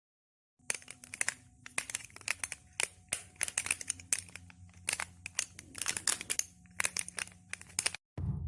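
Dense, irregular crinkling and crackling of material crumpled by hand to make a foley sound effect. It starts about half a second in and cuts off abruptly near the end.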